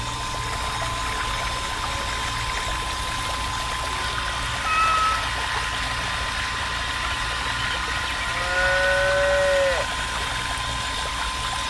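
Miniature electric water pump running steadily with a constant whine and hum, its thin water jet splashing into the pond. Two short animal-like calls rise over it, a brief one near the middle and a longer one of about a second later on.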